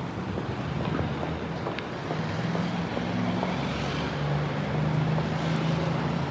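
City street traffic: a steady rumble of car engines and tyre noise, with a low engine drone growing a little louder in the second half.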